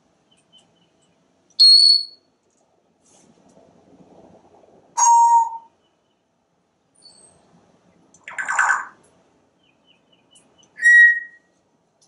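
African grey parrot giving four short calls a few seconds apart: three clear whistles at different pitches, one high, one low and one middling, and a harsher, raspy squawk between the last two.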